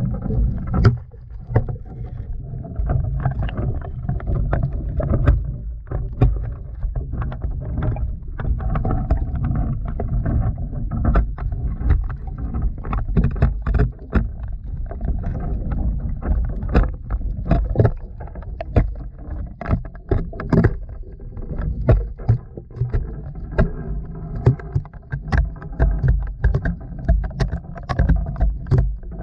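Handling noise of a GoPro camera lowered down a dry well: a steady low rumble with frequent irregular knocks and scrapes as the camera bumps along the well wall.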